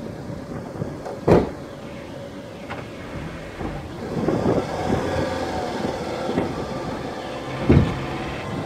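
Old banger car's engine running and revving off camera, with wheels spinning on loose ground; it grows louder about four seconds in. Two short loud knocks, one about a second in and one near the end.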